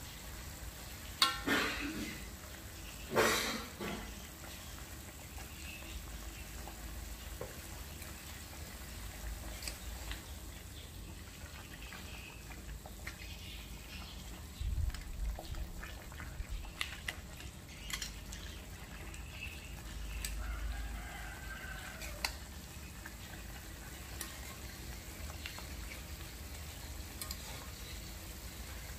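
Water boiling in an aluminium wok with bok choy in it, a steady low bubbling hiss. Metal tongs stir the greens and knock and scrape against the wok, mostly around the middle. Two short, louder noises come about one and three seconds in.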